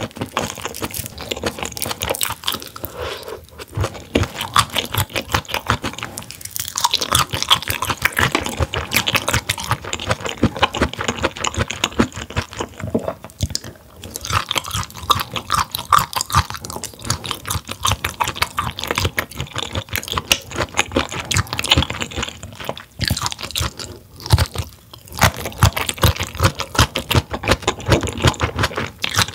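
Close-miked chewing and crunching of grilled mullet gizzard, with a few brief pauses between mouthfuls.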